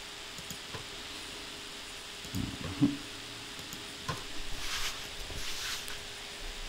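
Quiet desk sounds during computer work: a few soft clicks and low thumps, the loudest about halfway through, over a steady microphone hiss, with two short breathy swishes in the second half.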